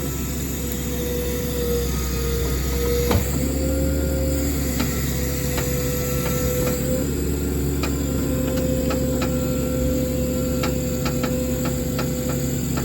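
Hydraulic pump whining steadily over the truck's running 6.8-litre V10 as the bucket boom is worked, the pitch shifting slightly as functions engage. A single knock about three seconds in, then scattered sharp clicks and creaks through the second half.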